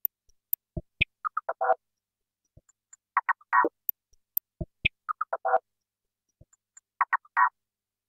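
Electronic glitch-clicks loop previewing: sparse sharp clicks and short chirping blips in a pattern that repeats about every two seconds, stopping shortly before the end.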